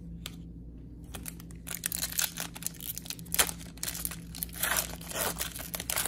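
Foil trading-card pack being torn open by hand and its wrapper crinkled: a run of crackling rips and crinkles that starts about a second in.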